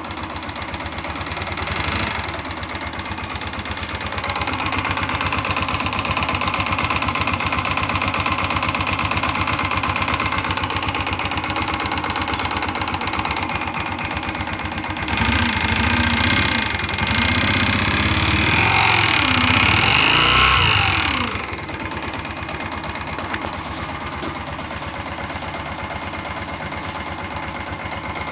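Yamaha XTZ 125 single-cylinder four-stroke engine idling, revved up and down a few times about halfway through, then settling back to idle. It makes a strange tinny noise that the owner likens to a tin can.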